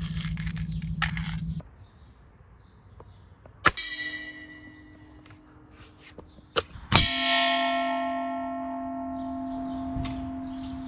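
Air-rifle pellets striking a metal pot twice, each hit making it ring like a bell; the second ring holds on much longer. Before the hits a steady hum cuts off about one and a half seconds in, and a sharp click comes just before the second hit.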